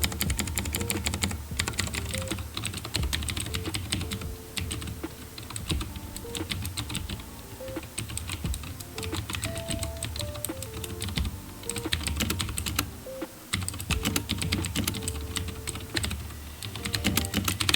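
HyperX Alloy FPS mechanical keyboard with clicky blue switches being typed on fast: a dense run of sharp keystroke clicks with a few brief pauses. A simple melody of background music plays quietly underneath.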